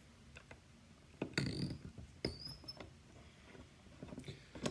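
Small metal lock parts and key being handled: a few light clicks, a clattering scrape a little over a second in, a short high metallic squeak just after, and more light clicks near the end.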